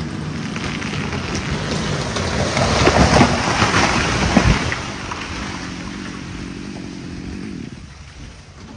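A big oak tree falling, its limbs rushing and snapping through the branches, loudest around three to four seconds in. Beneath it a chainsaw idles steadily, then fades out near the end.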